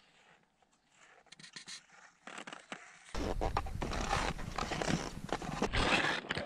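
Scraping and crunching of ski-touring strides and pole plants on snow, faint at first, then much louder from about three seconds in, with wind buffeting the microphone.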